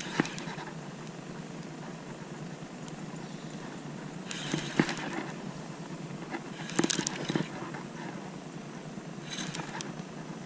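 Steady outdoor hiss with a few short scuffs and clicks spread through it, from an angler working a baitcasting reel and rod while bringing a hooked fish alongside a kayak.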